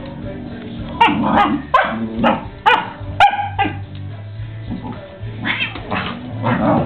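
Dog giving a run of short barks and yips in play, several in quick succession about a second in, then more near the end.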